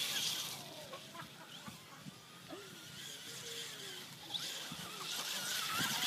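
A high-speed electric remote-control car running hard over grass: a high whirring hiss at the start that dies away within the first second, then builds again and grows louder over the last second and a half. In the quieter stretch between, short chirping calls rise and fall.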